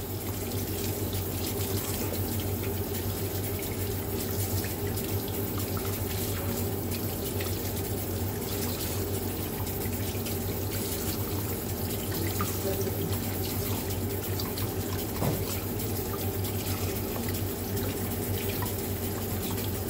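Kitchen tap running steadily into a stainless-steel sink, the stream splashing over lettuce leaves as they are rinsed one at a time and dropped into a bowl of water. A steady low hum runs underneath.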